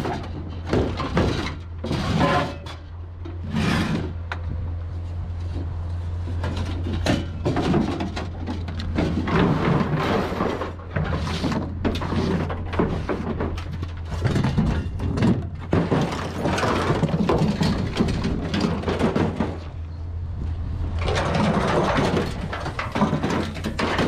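Scrap metal clattering and scraping in irregular bursts as pieces are dragged across and thrown off a pickup truck bed, over a steady low engine hum.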